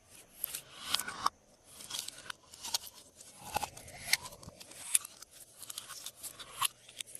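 Glossy slime being squished and stretched by hand: irregular sharp clicks and crackles, several a second, from air pockets popping in the slime.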